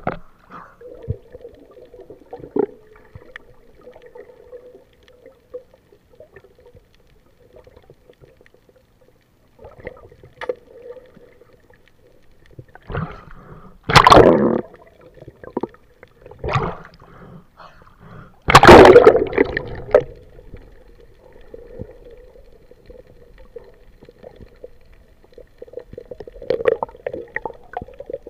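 Sea water gurgling and sloshing around a camera at and just under the surface, heard muffled through the water, with two loud splashing rushes a few seconds apart near the middle.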